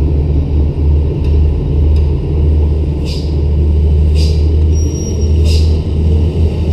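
Diesel engine of a Hino dump truck running with a steady low rumble as it drives on a muddy haul road, with a bulldozer's engine running behind it. Three short hisses, about a second apart, come from about three seconds in, typical of air-brake bursts.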